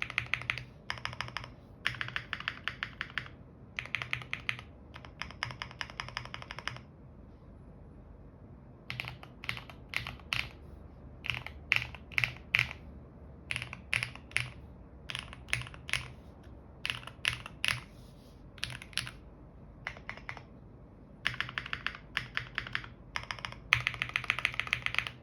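Qwertykeys QK75 mechanical keyboard with an aluminium plate and Hyperglide Black Stem Cream switches being typed on. Fast runs of keystrokes come first, then a slower stretch of separate presses in the middle, then fast typing again near the end.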